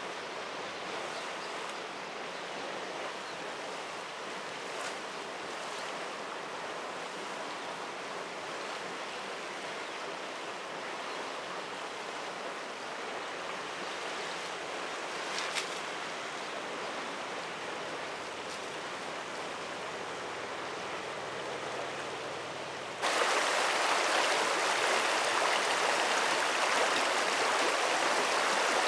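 Steady rush of a stream's running water. About 23 seconds in, it cuts abruptly to a louder, closer rush of shallow water flowing over waterweed.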